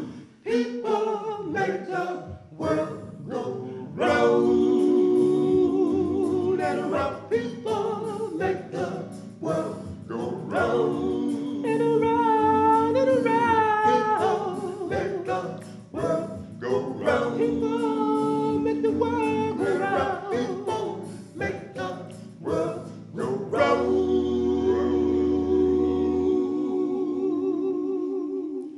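Male vocal quartet singing a cappella in close harmony, with no instruments. Near the end the group holds one long final chord that cuts off sharply, ending the song.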